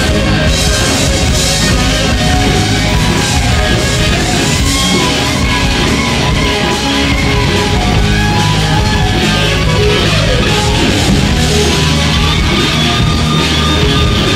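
Southern rock band playing live and loud: distorted electric guitars, bass guitar and drum kit.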